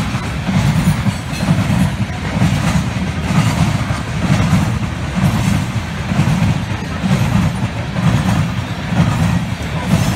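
Loaded coal cars of a freight train rolling past at track speed: a steady low rumble of steel wheels on rail with frequent clicks and clanks from the cars.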